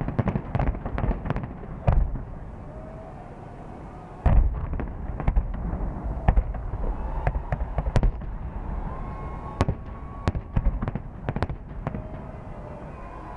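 Fireworks bursting overhead: rapid cracks and bangs, a deep boom about four seconds in, then scattered sharp pops, with faint whistles among them.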